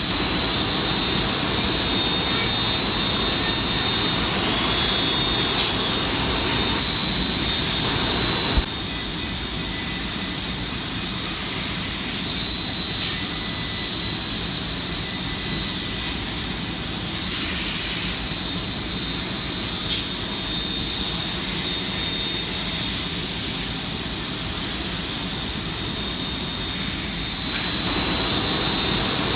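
Steady machine noise, a rush with a high steady whine over it. It drops quieter about nine seconds in and comes back up near the end.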